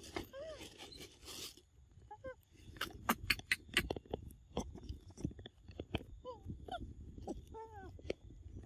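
Young macaques giving short squeaky calls that fall in pitch, several times, over a run of sharp clicks and crackles, loudest in the middle.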